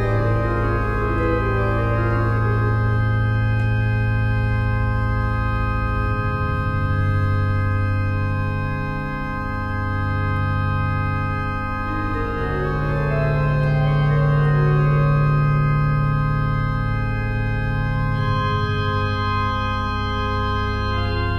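Electronic organ playing slow, sustained chords over a deep held bass note that changes several times, with quicker moving inner notes near the start and again about two-thirds of the way through.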